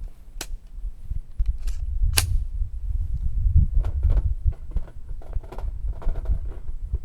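Two sharp gunshot reports about two seconds apart, the second the louder with a short ring-out, over low wind buffeting on the microphone.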